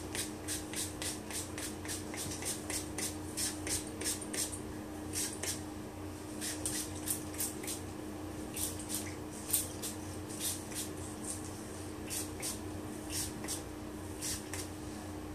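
Finger-pump spray bottle misting hair with quick runs of short hisses, about three pumps a second, with brief pauses between runs. A steady low hum runs underneath.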